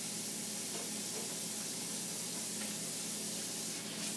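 Water running steadily from a kitchen tap into a sink, an even hiss, with a faint low hum underneath.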